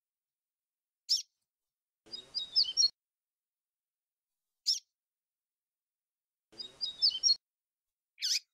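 Papa-capim (yellow-bellied seedeater) singing the flute-like 'grego' song type: two short warbled phrases, each under a second long, with single sharp chirps between them, the female's call that the recording carries.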